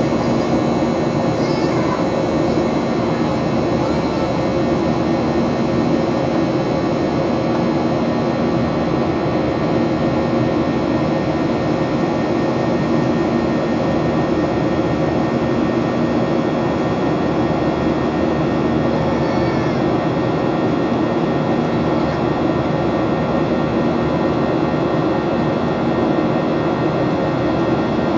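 Steady drone of the Boeing 737-800's CFM56 jet engines and rushing airflow, heard from inside the cabin in flight, with constant engine tones running through it.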